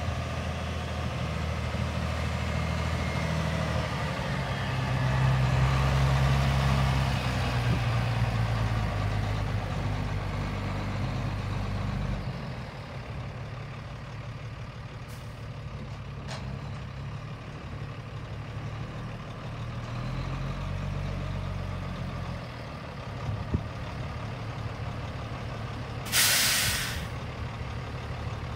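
1998 International dump truck's diesel engine running as the truck drives slowly, pulling harder for a few seconds before easing off and picking up again. Near the end, a loud hiss of the air brakes lasting about a second.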